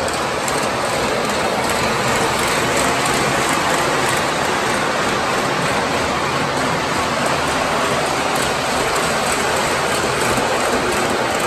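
MTH O-scale R62A model subway train running, a loud, steady rushing noise with no breaks or changes.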